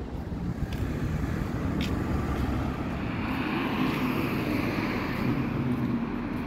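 Street traffic: a motor vehicle's engine and tyres swell as it passes by, over a low rumble of wind on the microphone.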